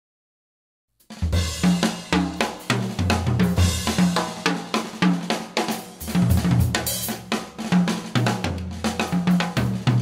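Silence for about a second, then backing music starts: a band track driven by a drum kit, with snare, hi-hat and cymbal hits over a moving bass line.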